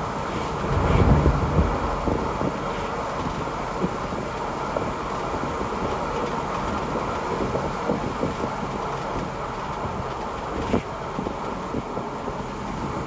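Inside the cabin of a 1964 Mercedes 220 Sb driving along at a steady pace: its straight-six engine runs under a steady rush of tyre and road noise, with small knocks and rattles from the body. There is a brief louder surge about a second in and a sharp click a little before the end.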